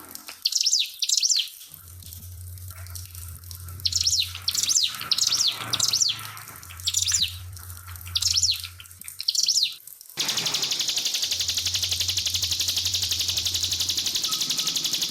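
Ciblek (prinia) singing in quick bursts of high chirping phrases with short pauses between them. About two-thirds of the way in, the song gives way abruptly to a steady, even high hiss, with a low hum coming and going underneath.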